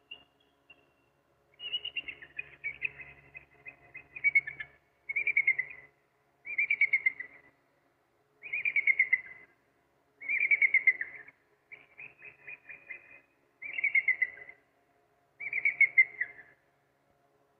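African crowned eagle calling: a series of about eight high, ringing call phrases, one every second and a half or so, each a rapid string of notes that falls slightly in pitch.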